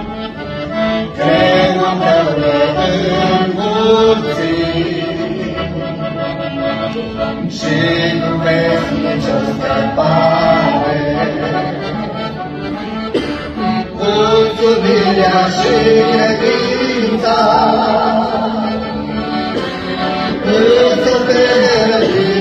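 Music: a song praising God, sung by a voice over instrumental accompaniment.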